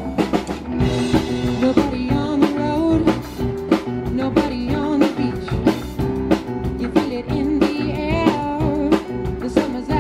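Live pop-rock band playing, with a drum kit keeping a steady beat under electric guitars and keyboard, and a singer's voice.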